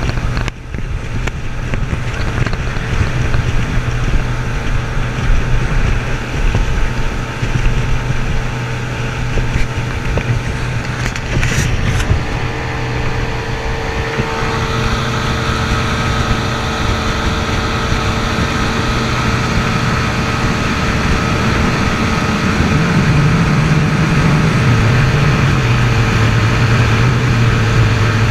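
Outboard motor running at speed on a small racing boat, with wind rumbling on the microphone. About halfway through the engine note steadies with added higher tones, and near the end its pitch wavers up and down.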